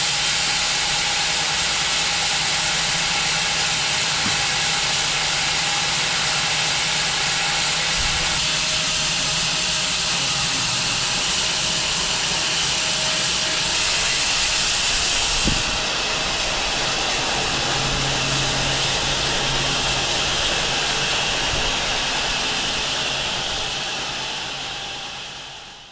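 Home-built wide bandsaw mill running and sawing through an elm log, a steady loud hiss of blade and motor with one knock about halfway through. It fades out near the end.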